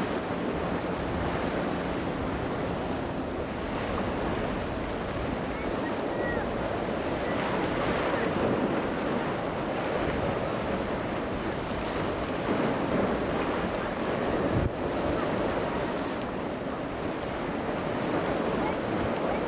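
Waves and surf washing through the inlet with steady wind noise on the microphone, and a boat engine humming underneath for the first few seconds.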